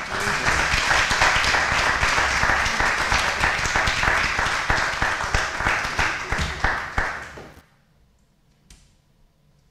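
Congregation applauding: many people clapping steadily for about seven seconds, then dying away quickly.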